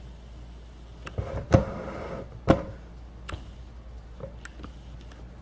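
Handling of a camera being adjusted: about five sharp, irregularly spaced clicks and knocks, the two loudest about a second and a half and two and a half seconds in, over a steady low hum.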